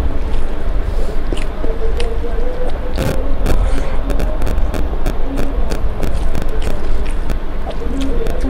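Fingers mixing rice and curry on a steel plate and mouth chewing, heard as scattered soft clicks and smacks over a steady low rumble.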